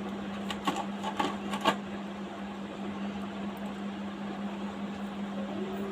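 A steady low electrical hum in a small room, with a quick run of five or six light metallic clicks and clinks in the first two seconds as jewellery and bangles are handled while an earring is put on.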